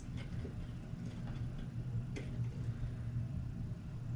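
A few light clicks and taps from small parts being handled and fitted together, the sharpest about two seconds in, over a steady low hum.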